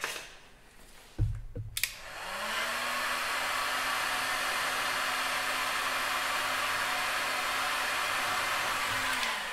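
A couple of knocks, then an electric heat gun is switched on about two seconds in. Its fan motor spins up with a brief rising hum and then blows steadily, and it is switched off near the end.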